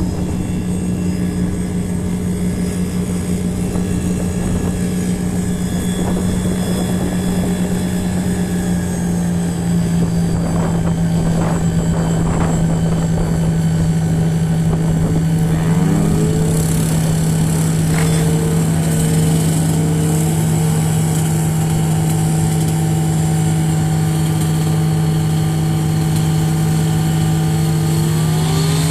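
Piston engines of propeller tow planes: one runs steadily throughout, while another speeds up with a rising pitch about 16 seconds in and again at the very end, as a tow plane opens the throttle.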